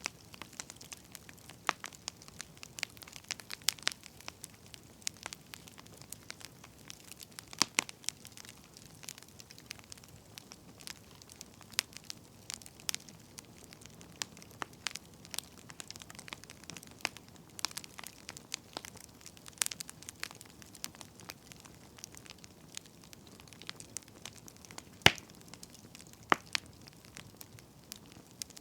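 Wood fire crackling: irregular sharp pops and snaps over a soft steady hiss, with the loudest pop about 25 seconds in.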